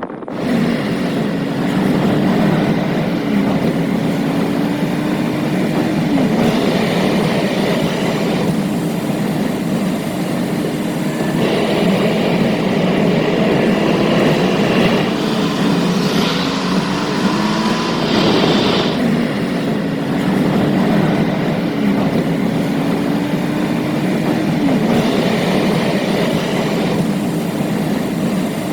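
A vehicle driving at speed: a steady, loud road rumble, with a low hum that climbs in pitch and drops back again and again every few seconds, and stretches of brighter hiss coming and going.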